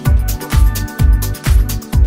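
Electronic dance music with a steady kick drum about twice a second, pitched synth notes and hi-hats over it.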